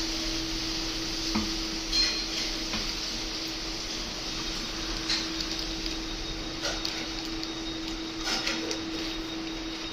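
Aquarium pump humming steadily over a constant hiss, with a few light knocks or taps now and then.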